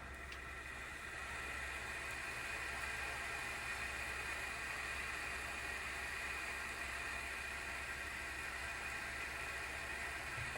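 The single cooling fan of an ASUS GeForce RTX 3060 12GB Phoenix graphics card whirring under benchmark load, getting louder over the first couple of seconds and then holding steady with a hissing edge. The owner takes the noise for a failing fan, either a wobbling shaft or a bearing that has run out of oil.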